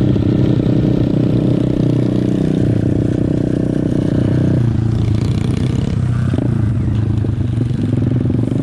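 Small single-cylinder four-stroke pit bike engines running steadily at riding speed, the SSR 125 under the rider the nearest. About halfway through the engine note drops as the throttle is eased off and the bikes slow down.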